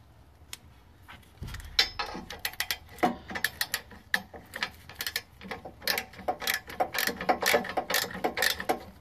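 Ratchet wrench with a deep 14 mm socket clicking in quick, uneven runs as it spins an exhaust manifold nut off its stud, starting about a second and a half in.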